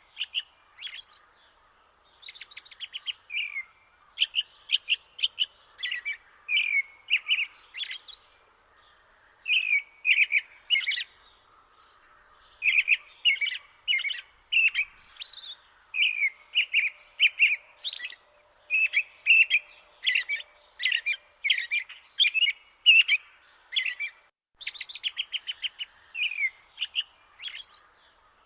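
Small bird singing: short runs of quick, high chirps and twitters, repeated every second or so, over a faint steady background hiss.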